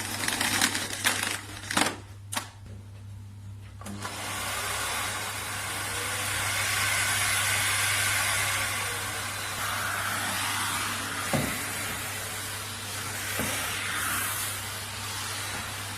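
Rowenta RO3950 bagged vacuum cleaner: a few clicks and knocks, then the motor comes on about four seconds in and runs steadily, with a couple of knocks later on.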